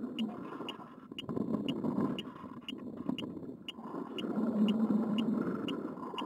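Wind buffeting the onboard camera of a hobby rocket drifting down under its parachute: a rushing that swells and fades, loudest about four to five seconds in. Over it, short high ticks repeat evenly about twice a second.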